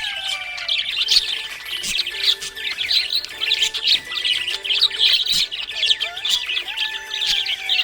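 A group of small pet parrots chirping and chattering in a rapid, unbroken stream of high chirps.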